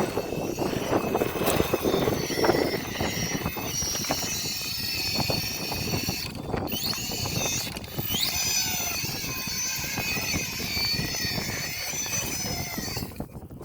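Whine of an RC crawler's 2500kv Revolver brushless motor and geartrain, rising and falling in pitch as the throttle changes, over crackly scraping and clicking from the truck working over rock. The whine stops sharply near the end.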